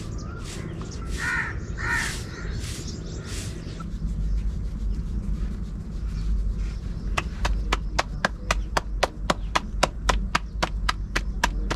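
A crow caws twice early on. From about seven seconds in, hooves clip-clop at a steady pace of three to four strikes a second over a low rumble.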